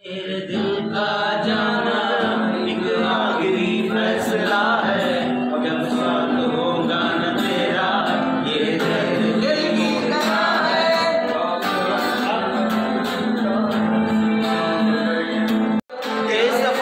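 A male voice singing a song to an acoustic guitar. The sound cuts out for a moment about a second before the end, then the song goes on.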